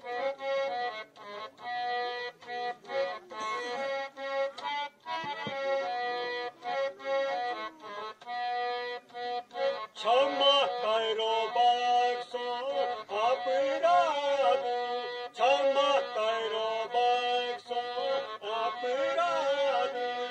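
Harmonium playing a held, chord-like melody in short repeated pulses. About halfway through, the music gets louder and a part with sliding, bending pitches joins in.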